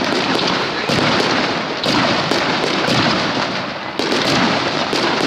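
A starmine fireworks barrage: aerial shells launching and bursting in quick succession. Overlapping bangs come several to the second over a continuous crackle, with no pause.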